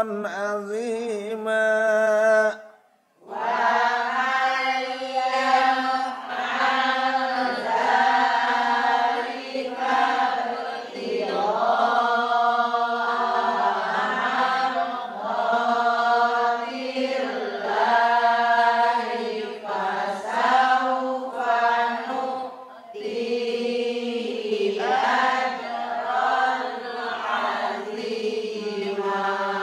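A man reciting the Qur'an in Arabic in a melodic chanted style, drawing out long held notes. He pauses for breath about three seconds in, then carries on in one long phrase after another.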